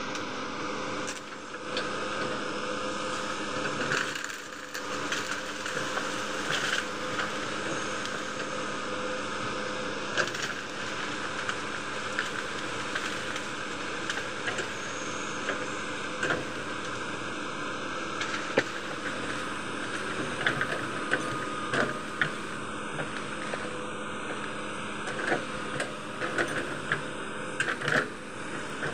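Hitachi 210F excavator's diesel engine running steadily under work, with scattered sharp cracks and snaps of wood breaking as it knocks down and clears trees; the snapping grows more frequent near the end.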